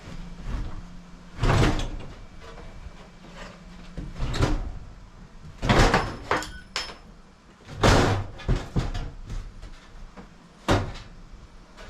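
A copper propane line being yanked and wrenched by hand inside wooden camper cabinetry, giving about six sharp, irregularly spaced knocks and bangs with scraping and clatter in between.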